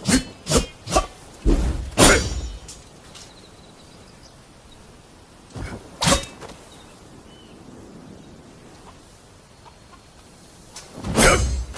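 Sword combat sound effects: three quick sharp strikes, then a longer clash with a metallic ring about two seconds in, two more strikes around six seconds in, and a final ringing clash near the end.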